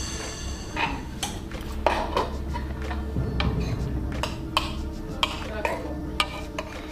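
Metal spoons clinking and scraping against bowls as people eat: a dozen or so irregular clinks over a steady low hum.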